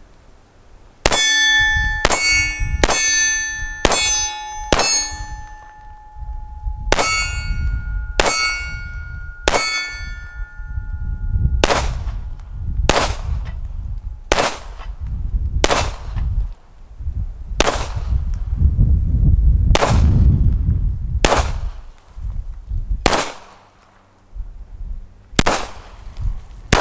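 SIG Sauer P226 Legion SAO pistol fired in a slow string of single shots, about a second apart. In the first half most shots are followed by the bright, lingering ring of AR-500 steel targets being hit. The later shots come with little or no ring.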